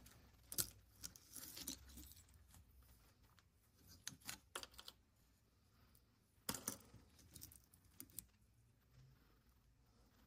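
Faint, scattered clicks and scratches of thin flakes of sedimentary rock being pried up and handled with fingers and a razor blade.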